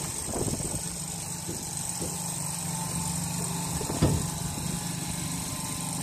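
SKM chiller's compressor starting up and then running with a steady hum. There is a single knock about four seconds in. The unit has been tripping on low suction pressure, which the technician puts down to a low refrigerant charge.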